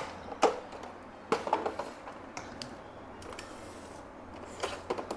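A few light clicks and knocks of portable radio-cassette players being handled and moved, scattered over quiet room noise.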